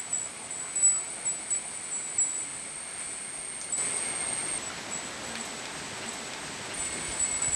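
Fish curry at a rolling boil in an open clay pot: a steady bubbling with a few sharp pops in the first couple of seconds.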